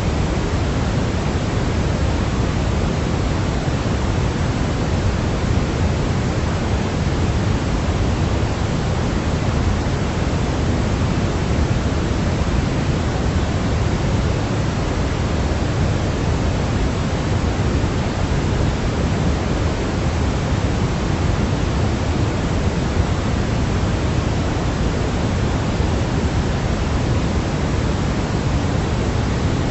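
Steady synthetic pink noise, an even hiss weighted toward the low end with no rhythm or change, played as a sleep aid for babies.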